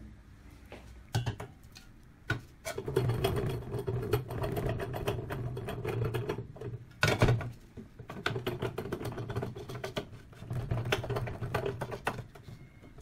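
Metal clicking and rattling from a manual screen-printing press as an aluminium frame is fitted into its clamp and the clamp's hand knobs are turned, with stretches of rubbing buzz and a louder knock about seven seconds in.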